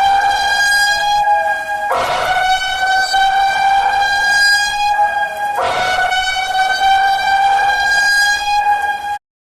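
Emergency-alert alarm tone: one loud, held horn-like note with a fainter lower note under it. It breaks off briefly twice, then cuts off suddenly near the end.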